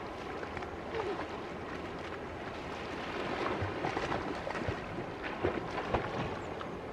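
River water lapping, with splashing from a person swimming that comes as short, sharp strokes, more of them from about halfway through.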